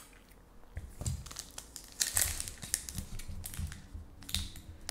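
Upper Deck hockey card pack's foil wrapper being torn open and crinkled by hand, a run of sharp crackles starting about a second in.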